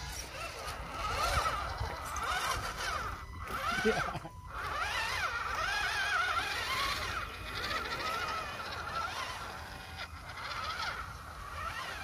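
Electric motors and gearboxes of scale RC 4x4 crawler trucks whining as they drive up a muddy bank, the pitch wavering up and down with the throttle, over a steady low rush.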